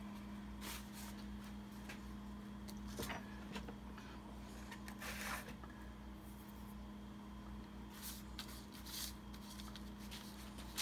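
Faint workbench handling sounds: a paintbrush swished and tapped in a plastic pot of solvent to clean it and a paper towel rustling, heard as a few brief soft knocks and rustles over a steady low hum.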